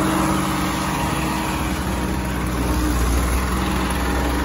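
Farm tractor's diesel engine running steadily as the tractor moves through a muddy field.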